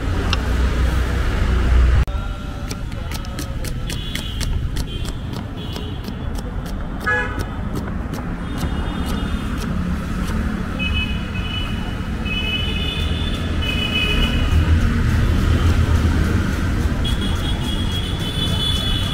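Street traffic rumbling with repeated high-pitched horn honks throughout. In the first half, a knife taps quickly on a wooden cutting board, several strokes a second, as an onion is sliced.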